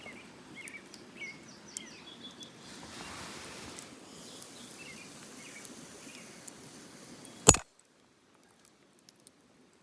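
Outdoor ambience with small birds giving short repeated chirps. About three-quarters of the way through comes a single sharp click, after which it goes much quieter.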